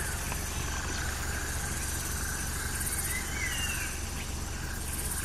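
Outdoor ambience: a few short bird chirps that rise and fall in pitch, one near the start and a pair about three seconds in, over a steady low rumble.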